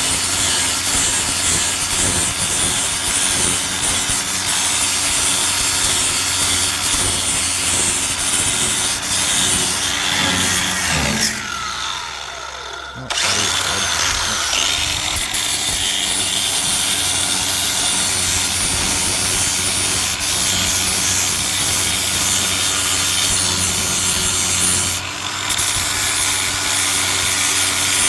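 Power grinder grinding down welds on a steel body patch panel. About eleven seconds in it is let off and its pitch falls as it winds down, then rises as it spins back up; it stops briefly again near the end.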